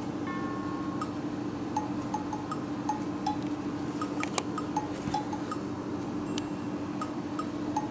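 Background music: a light, plinking tune of chime-like notes recurring at a steady pace.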